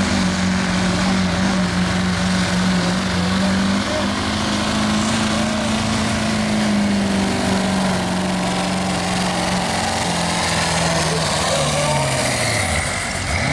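Ford Super Duty diesel pickup pulling a sled at full throttle, its engine held at a steady high rpm under heavy load with a loud rush of exhaust. About ten seconds in, the rpm falls away as the truck comes off the throttle at the end of the pull.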